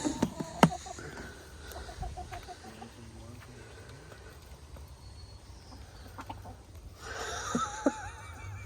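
Backyard hens clucking and chattering back and forth in a little conversation, with a few sharp knocks in the first second. A short run of quick clucks comes a couple of seconds in, and a louder burst of warbling chatter comes near the end.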